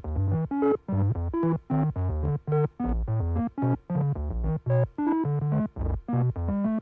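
Synthesized electronic tones: short, low-pitched beeps at random pitches in quick succession, about four a second, sci-fi computer signals.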